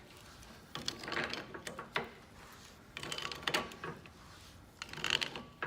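Rusty, once-seized sliding jaw of an old J.H. Williams adjustable wrench being worked back and forth by hand, metal scraping and clicking in four short bursts as the freed jaw moves along its slide.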